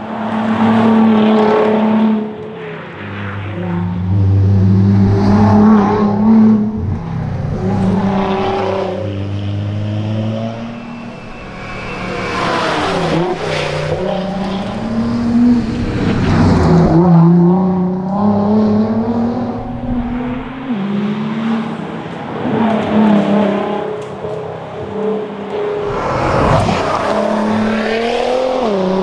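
Nissan R35 GT-R's twin-turbo 3.8-litre V6 running hard, its pitch climbing repeatedly through the revs and dropping back sharply at gear changes and as it slows for corners.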